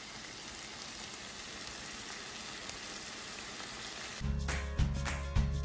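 Stir-fry of green pepper, red bell pepper, bamboo shoot and konjac strips sizzling in a frying pan, a steady even hiss. About four seconds in, music with a strong beat starts abruptly.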